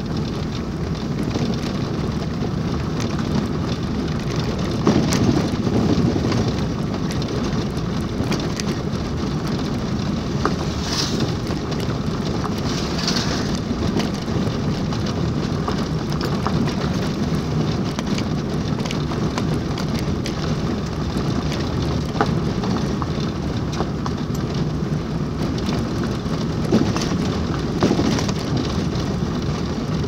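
Vehicle driving along an unpaved dirt road: a steady rumble of tyres and engine heard from inside, with occasional knocks and rattles from bumps in the surface.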